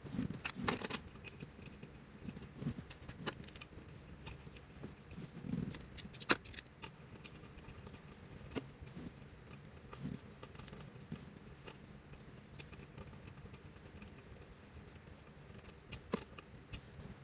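Scattered light clicks, taps and a few soft knocks of a car's short shifter and its bolts being handled and worked into the shifter linkage, metal on metal. The sharpest tap comes about six seconds in.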